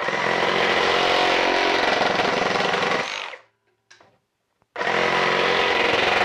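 Milwaukee M18 Fuel Super Sawzall reciprocating saw cutting through a wooden 1x6 with its orbital action on, at speed 5. Two cuts: the first runs about three seconds and stops, and after a pause of about a second and a half the saw starts again on the next cut.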